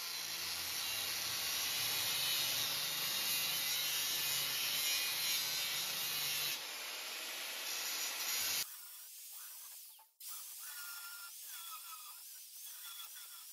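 Angle grinder grinding out tack welds on a steel roller end, a steady, loud grinding noise. About two-thirds of the way through it drops abruptly to a quieter, thinner hiss.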